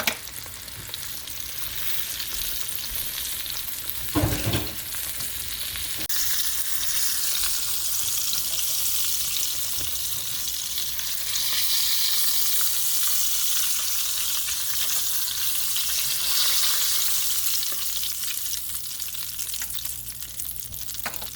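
Breaded oyster mushrooms frying in hot oil: a steady sizzling hiss that grows louder after about six seconds. A brief thump comes about four seconds in.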